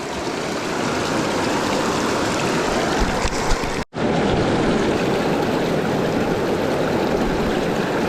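Rushing creek water, a steady loud rush, from a stream running high with runoff. The sound cuts out for a split second about four seconds in, then the rush resumes.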